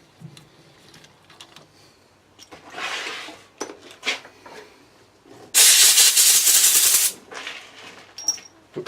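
A loud spraying hiss lasting about a second and a half, just past the middle, after a few light scrapes and clicks of metal.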